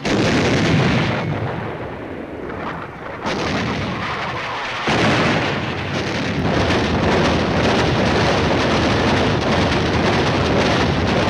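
Heavy naval gunfire from warships in a bombardment: a dense, continuous din of big guns firing and shells bursting, louder again from about five seconds in.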